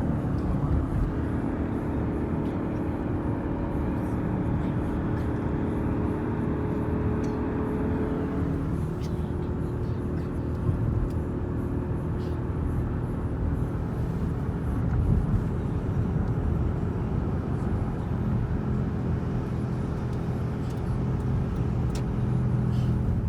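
Steady engine and road noise inside a moving car, a low rumble with a hum whose pitch shifts about eight seconds in.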